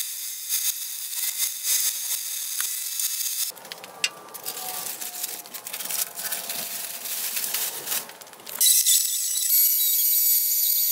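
Gravity-feed paint spray gun hissing as it sprays, stopping about three and a half seconds in. After a quieter stretch, a louder hiss with a steady high whine starts near the end.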